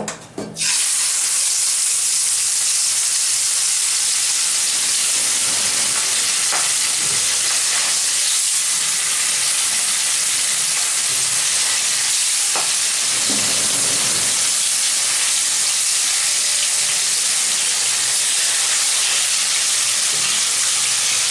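Turmeric-coated hilsa steaks frying in hot mustard oil in a kadai: a loud sizzle bursts up about half a second in as the fish goes into the oil, then holds steady. A few light taps come as more pieces are laid in.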